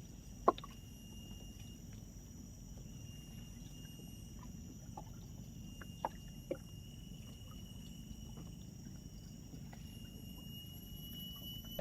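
Riverside ambience: a low steady rush with a thin, steady high insect drone over it, and a few faint short clicks, the sharpest about half a second in.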